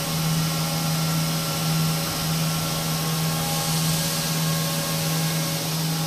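Double jersey bird's eye circular knitting machine running: a steady mechanical hum with a strong constant low tone, a few fainter steady whines above it, and a high hiss.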